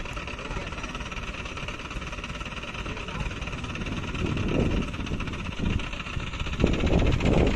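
Diesel engine of a pick-and-carry hydra crane running steadily, revving up in surges about halfway through and again near the end as it drives the hydraulics that swing the boom.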